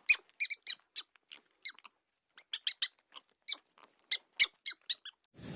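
Rats squeaking: a series of short, high-pitched squeaks in irregular clusters, with brief silences between them.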